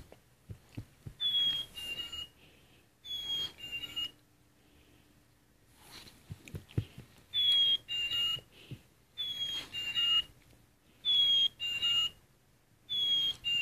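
A plush chickadee toy's sound button playing its recorded chickadee song six times: each play is two clear whistled notes, the second lower than the first. The plays come twice early on, then four times in quick succession, each with a faint recording hiss behind it.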